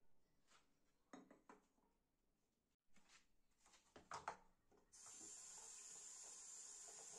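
A few soft knocks and clicks of objects being handled, then from about five seconds in a steady hiss that starts abruptly.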